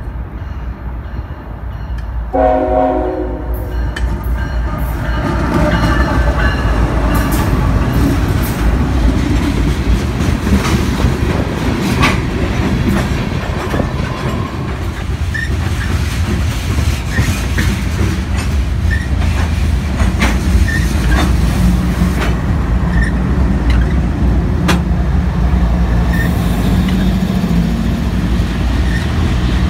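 A Norfolk Southern freight train passing close by. The locomotive horn sounds about two seconds in, then the train rumbles past with steady wheel clacking over the rails. Near the end, the mid-train diesel locomotives go by with a low, steady engine drone.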